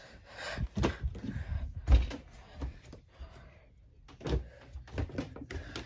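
A string of dull thumps and knocks from someone clambering over a couch and onto an air hockey table, with rustling in between; the loudest thump comes about two seconds in, and there are more just past four seconds.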